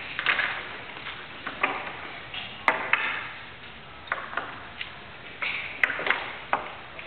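Chess pieces being set down on a roll-up board and a chess clock's buttons being pressed in quick turns: a rapid, irregular series of sharp clicks and taps, about a dozen in all.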